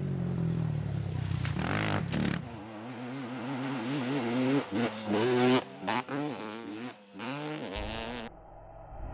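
Sport quad ATV engine revving hard under throttle on a dirt trail, the revs climbing and dropping again and again with short breaks. Near the end the sound turns quieter and duller.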